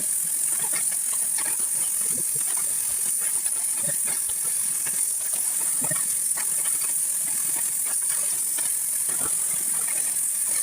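Oxy-acetylene torch flame hissing steadily while heating steel, with scattered small crackles and clicks.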